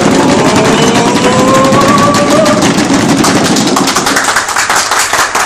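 A group of men clapping in a quick, steady rhythm while shouting together, with one long yell rising slowly in pitch over the first couple of seconds. About four seconds in the shouting eases and the clapping carries on alone.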